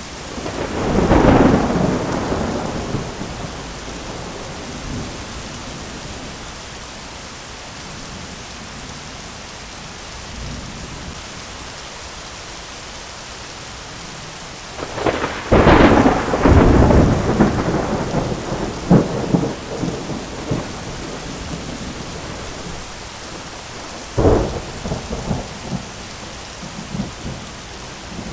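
Thunderstorm: steady rain hiss with rolling thunder. A peal of thunder comes about a second in, a louder, longer rumble rolls for a few seconds around the middle, and a sharper clap with trailing rumbles comes near the end.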